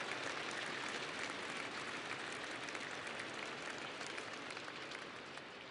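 Audience applauding, fading out gradually.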